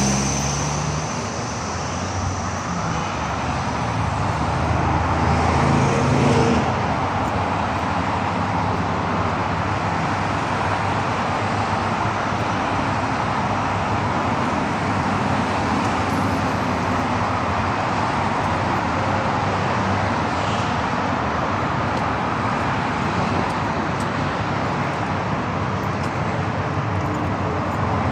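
Steady road traffic noise: cars and other vehicles running past on a busy boulevard, with one passing louder about five to six seconds in.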